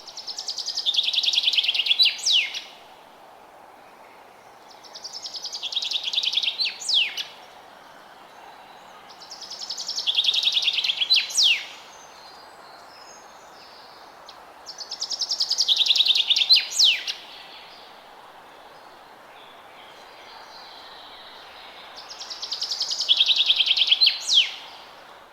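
A forest songbird singing the same song five times, about every five seconds. Each song is a fast trill that grows louder and ends in a sharp upward flourish. A faint steady background hiss runs underneath.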